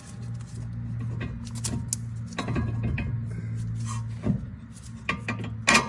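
Hand tools clicking and clinking on metal as suspension bolts are tightened, with irregular sharp clicks and a ringing metallic clink near the end. A steady low hum of background music runs underneath.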